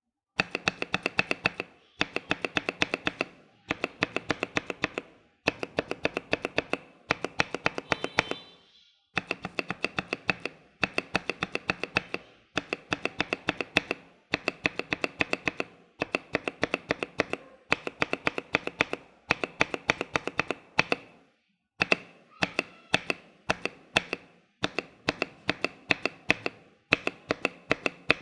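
Mechanical keyboard spacebar with an SP DCS-profile keycap on a Hyperglide Cherry MX Black switch and an ML V1 stabilizer, pressed over and over. The presses come in quick runs of several clacks, with short pauses between runs.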